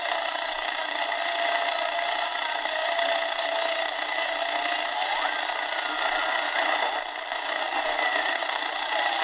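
AM static hiss from the small speaker of a Tecsun 2P3 kit radio tuned between medium-wave stations, with a faint wavering whistle that rises in pitch a little past halfway. The whistle is the beat between neighbouring stations' signals, and a weak, distant station is buried in the noise.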